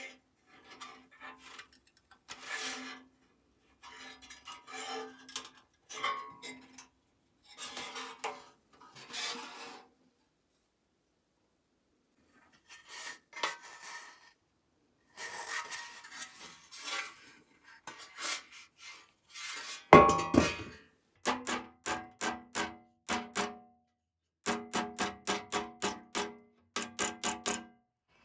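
Thick sheet-steel toy truck parts rubbing and clinking as they are handled. About 20 seconds in a hammer strikes the sheet metal clamped in a bench vise: one loud blow, then a quick series of ringing taps, about three a second, to knock out the dents.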